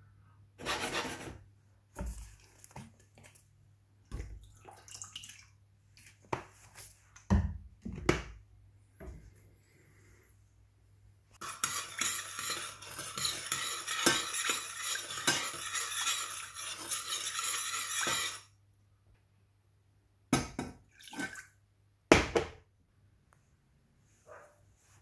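Dishes and cooking utensils clinking and knocking, with a steady hiss lasting about seven seconds in the middle.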